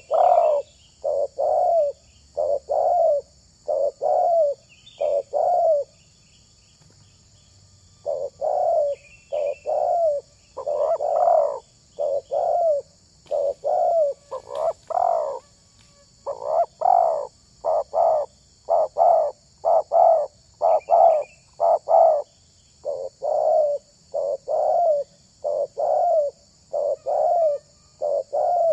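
Spotted dove (tekukur) cooing: a long series of short, evenly repeated coo notes with one brief pause about six seconds in. Faint chirps of small birds sound in the background.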